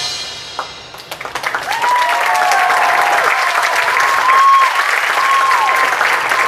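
The marching band's final chord rings away, then the audience breaks into applause about a second in, with whoops rising and falling over the clapping.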